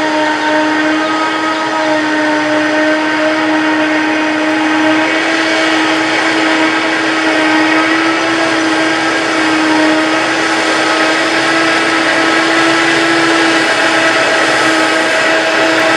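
Claas Jaguar 960 self-propelled forage harvester running at full speed while chopping green rye: a steady high whine over dense machine noise, its pitch rising slightly about halfway through.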